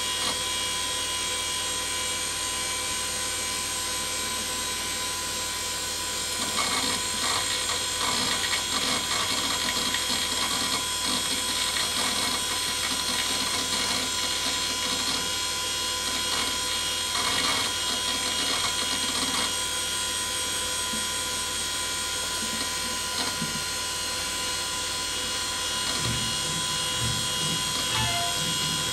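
Old Pentium III desktop PC running, its fans and hard drive giving a steady whine with several high tones. From about six seconds in, for some thirteen seconds, the hard drive chatters with irregular seek clicks while a QuickTime movie file is opened. Near the end the movie's own sound starts.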